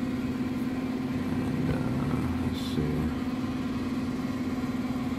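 Steady low mechanical hum with a rough rumble beneath it, unchanging throughout; a short spoken word about a couple of seconds in.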